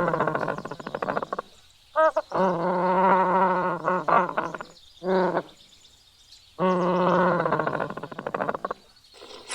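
An animal calling repeatedly: three long calls with a wavering pitch, and two short calls between them.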